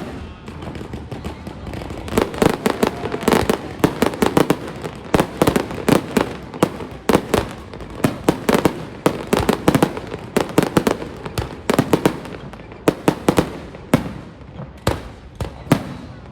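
Fireworks display: a rapid, dense run of bangs and pops, several a second.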